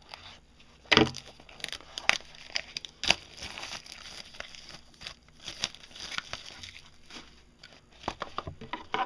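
Packaging of a sealed trading-card mini box being torn open and crinkled by hand: irregular crackles and snaps, a few sharper ones about a second, two seconds and three seconds in.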